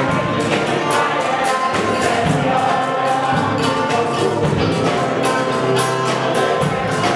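Mixed choir singing with amplified voices over drums and percussion keeping a steady beat.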